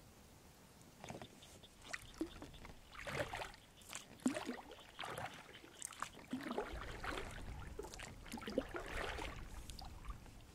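Double-bladed kayak paddle dipping into the water, splashing and dripping in irregular strokes about every second. A low rumble joins about two-thirds of the way through.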